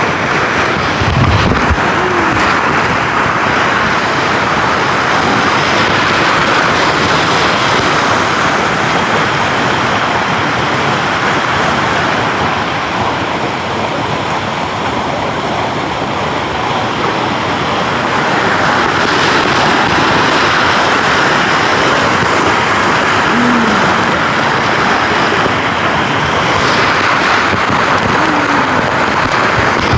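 Waterfall water rushing and splashing over rocks, a loud steady roar.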